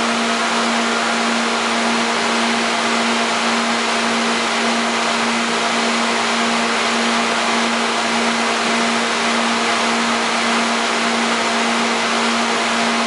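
Loud, steady hum and rush of the lobster warehouse's pumps, running without change, with a constant low drone under the noise.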